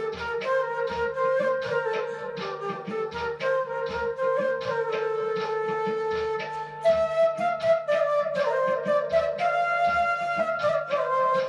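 Bamboo transverse flute playing a melody over a backing track with a steady drum beat and a low sustained bass note; the flute line climbs higher about seven seconds in.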